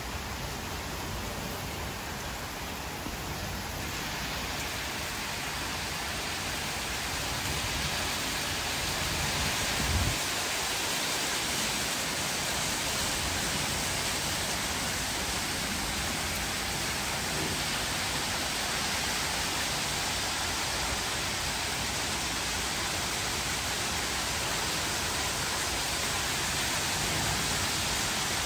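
Heavy rain pouring down, a steady hiss that grows heavier about four seconds in. A brief low thump about ten seconds in.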